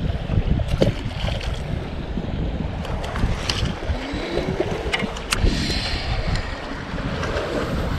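Wind buffeting the microphone in uneven gusts, with a few sharp small clicks from fishing gear being handled.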